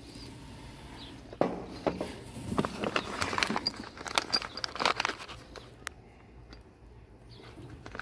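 A clear plastic bag of small metal reloading-press parts being handled and lifted out of a cardboard box: plastic crinkling and parts clinking against one another in an irregular run of rustles and clicks, starting about a second and a half in and dying down after about four seconds.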